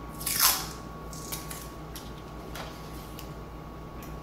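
Masking tape ripped off the roll in one quick pull about half a second in, then a shorter, fainter rip around two and a half seconds, with a few small taps.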